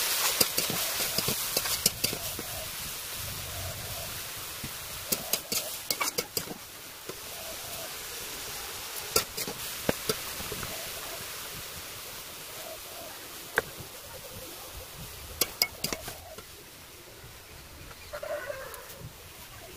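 A metal spatula stirs cabbage and potatoes in a kadai (wok) over the fire, with a soft sizzle and sharp clinks and scrapes of the spatula against the pan that stop about two-thirds of the way through. Chickens cluck faintly now and then, most clearly near the end.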